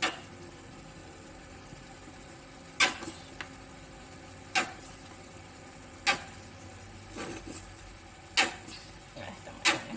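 A spoon knocking sharply against the pot and mayonnaise jar about six times, a second or two apart, as mayonnaise is scooped into the shrimp, over a steady low hiss.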